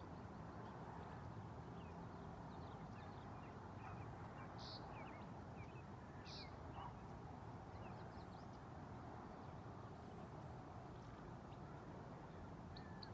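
Faint background hush with scattered small songbird chirps, and two louder short high calls about five and six and a half seconds in.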